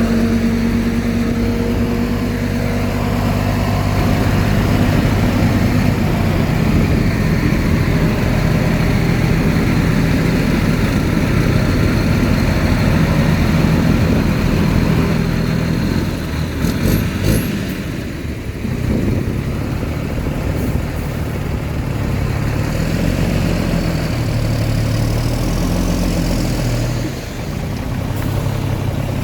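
Heavy earthmoving machinery running: a steady low engine drone from a bulldozer or dump truck at work. A few sharp clicks or clanks come a little past halfway.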